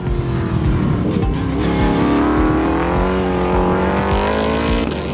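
S5000 race car's 5.2-litre Ford Coyote V8 at speed on track, its note falling for about the first two seconds, then climbing steadily as the car accelerates out of a corner. Background music with a steady beat plays underneath.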